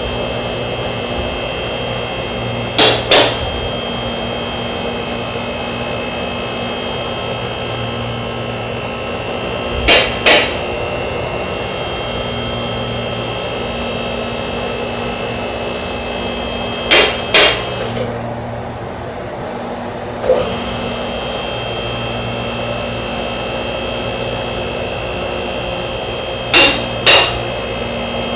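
BendPak MaxJax two-post lift's electric hydraulic power unit running steadily as it raises a full-size SUV. Pairs of sharp metallic clacks come about every seven seconds, four times, as the safety locks on the two columns catch each notch. The motor note drops briefly a little past halfway, with a single click.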